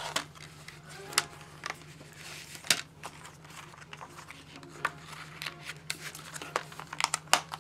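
A plastic DVD case and its paper insert being handled: scattered clicks and taps of the plastic, with a quick run of sharp clicks near the end, over a low steady hum.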